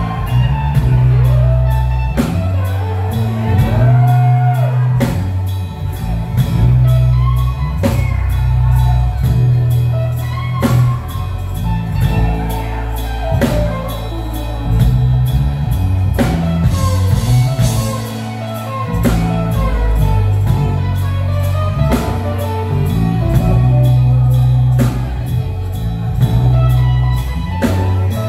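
Live band music: drum kit and bass keeping a steady groove under keys, with an electric guitar playing a lead line of bending notes.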